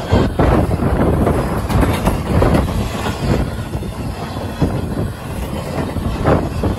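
Empty intermodal cars of a CSX freight train rolling past, their steel wheels running on the rails, with wind buffeting the microphone.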